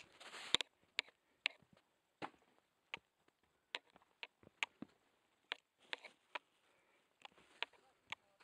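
Footsteps on a rocky stone path: irregular sharp clicks and knocks, roughly one to two a second, with a scuff at the start.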